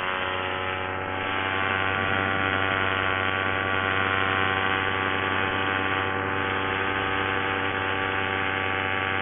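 Paramotor trike's engine and propeller running at a steady throttle in flight: a constant droning buzz that gets a little louder about a second and a half in.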